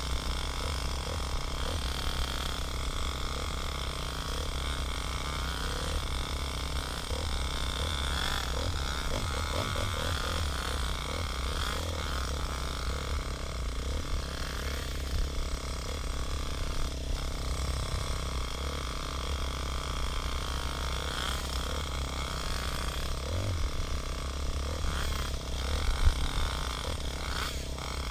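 Dirt bike engine running and revving up and down while riding a trail, heard from a camera mounted on the bike, with a sharp knock near the end.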